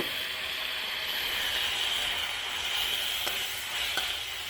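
Onions frying in hot oil in a wok, sizzling with a steady hiss. A couple of faint clicks come near the end.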